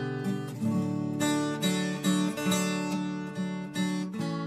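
Music of a strummed acoustic guitar, chords struck in a steady rhythm about two to three times a second.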